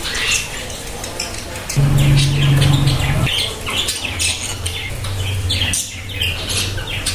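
Birds chirping again and again in the background, short high calls throughout. About two seconds in, a low steady drone sounds for about a second and a half, the loudest thing heard.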